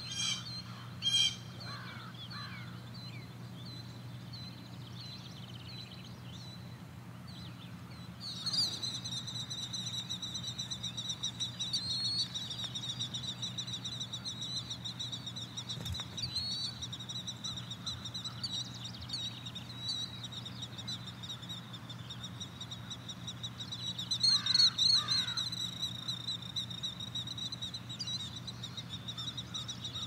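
Morning pasture ambience: a crow caws twice near the start. From about eight seconds a continuous high, rapidly pulsing trill sets in, with a louder burst of calls a little before the end, over a steady low hum.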